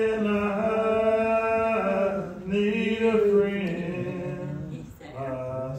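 A man singing a slow, unaccompanied hymn, drawing each syllable out into long held notes with short breaks for breath between them.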